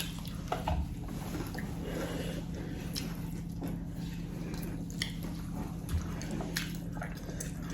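Wet close-up eating sounds: chewing and lip smacks, with scattered small clicks, over a steady low hum.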